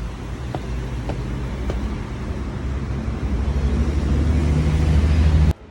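A vehicle running: a low rumble with a steady hum, growing louder toward the end and then cut off suddenly.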